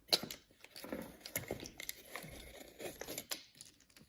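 Tablespoon scooping cocoa powder and tipping it into a coffee mug: soft scraping and rustling with scattered light clicks and taps.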